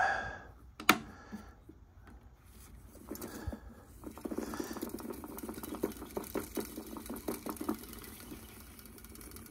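Plastic VHS cassette reels being turned by hand, giving one sharp click about a second in, then a run of small clicks and rattles from about four to eight seconds in. The reels are turned to even out a tape pack that has bulges.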